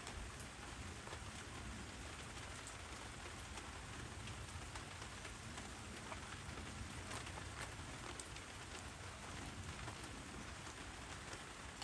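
Steady rain falling, with many single drops ticking sharply on nearby surfaces over the even hiss.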